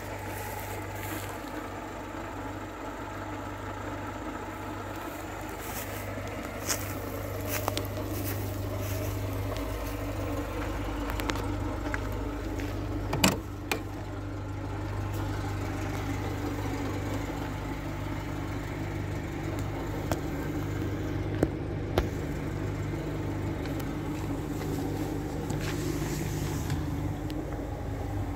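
VAZ-2107 Lada's 1.5-litre carburetted inline-four idling steadily, heard first from beside the car and then from inside the cabin. A few sharp clicks or knocks sound over it, the loudest about 13 seconds in.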